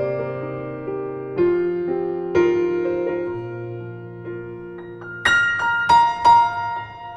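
Background music: slow piano chords, each struck and left to ring, with a run of brighter high notes near the end.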